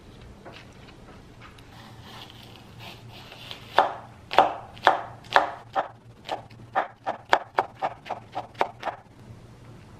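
Kitchen knife chopping green onion on a wooden cutting board: about fifteen sharp knocks of the blade on the board, starting about four seconds in and getting quicker before they stop.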